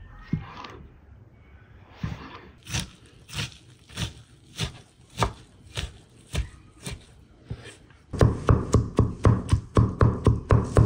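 A knife chopping on a wooden cutting board, single strokes a little over half a second apart. About eight seconds in it changes to a cleaver chopping minced meat with onion and tomato on the board, louder and heavier, about four strokes a second.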